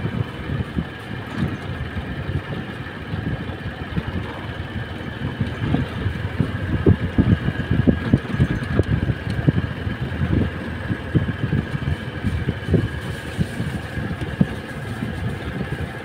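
Motorcycle engine running on the move, under an uneven low rumble full of short thumps.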